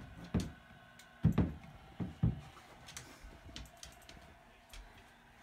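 A handful of dull knocks and thumps indoors, about five within the first two and a half seconds, then only faint room noise.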